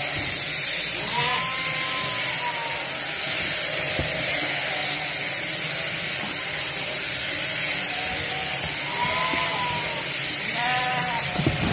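Sheep-shearing machine handpiece running steadily as it cuts through a Cheviot sheep's fleece. A sheep bleats about a second in and twice near the end.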